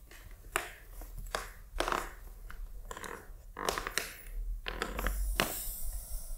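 Rustling and soft scattered knocks of a person shifting their weight on a yoga mat, moving from kneeling onto hands and knees and then sinking back into child's pose, with clothing brushing.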